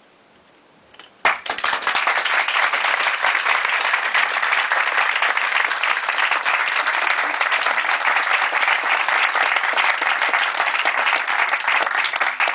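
A brief hush, then audience applause breaks out suddenly about a second in and goes on steadily as many hands clapping.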